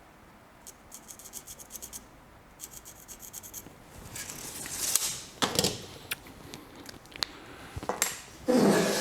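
Workshop handling sounds around a length of angle iron: two quick runs of rapid clicks in the first half, then rubbing and scraping with a knock about halfway, and a louder scraping rush near the end.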